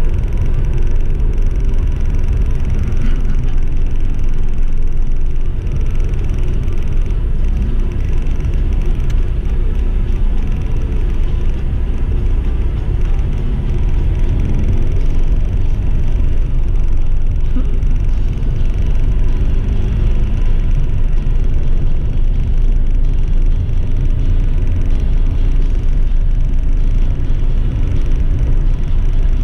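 Car driving at steady speed: a continuous low rumble of engine, tyre and wind noise picked up by a car-mounted action camera.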